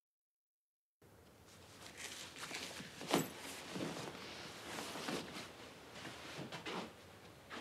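Dead silence for about a second, then quiet room tone with a series of soft, irregular thuds and rustles, the strongest about three seconds in.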